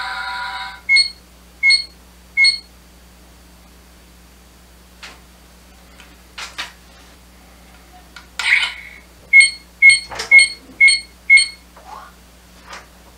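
Bandai Proplica Dragon Radar replica beeping electronically. Three short beeps come about a second in, then a few scattered clicks, then a quicker run of five beeps near the end as the radar shows the dragon-ball markers on its screen.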